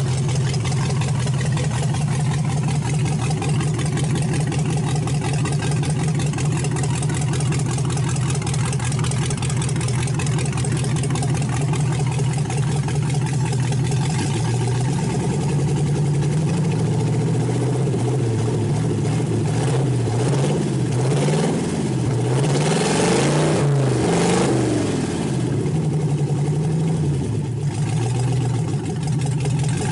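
V8 engine running through open headers on a bare hot-rod chassis: it idles steadily, then from about halfway it is revved up and down several times, highest a little past two-thirds of the way, before settling back to idle near the end.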